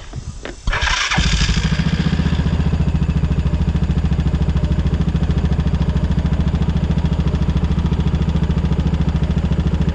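Coleman 4x4 side-by-side's engine cranking and catching about a second in, then idling steadily with an even, rapid beat; the idle sounds sound enough to the mechanics after the no-start.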